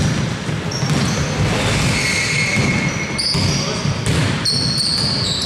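Basketball being dribbled on an indoor court during live play, with players' voices and short, high squeaks.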